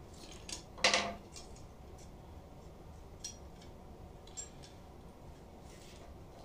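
Loose parts of a cleaver's removed handle and its small metal cap handled and set down on a wooden workbench. There is a clatter about a second in, then a few light metallic clinks.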